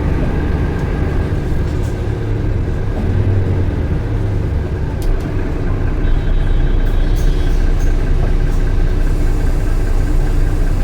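Bus SBS6304K's engine running steadily with a low rumble, with a few light clicks and a faint high tone lasting about a second about six seconds in.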